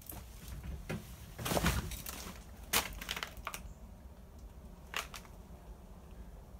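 Footsteps crunching over dried mud and broken debris on a floor, a few scattered crunches and knocks, most in the first half and one more about five seconds in.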